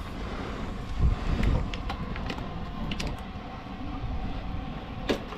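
Wooden fish-hold hatch cover on a small boat being handled and lifted open, with scattered clicks and knocks and one sharp knock near the end. A steady low rumble runs underneath.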